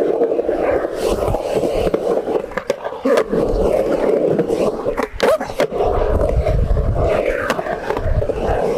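Skateboard wheels rolling steadily over concrete, with sharp clacks of the board and trucks hitting, several together about five seconds in.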